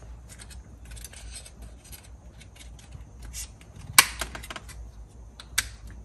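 Small plastic clicks and taps from a BMW E46 M3 center console trim panel and its switches being handled and turned over in the hands. A sharp click comes about four seconds in and another near the end.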